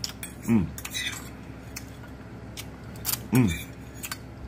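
Metal fork clicking and scraping against a glass bowl as ramen noodles are picked up, with two short hums that fall in pitch, about half a second in and again near the end.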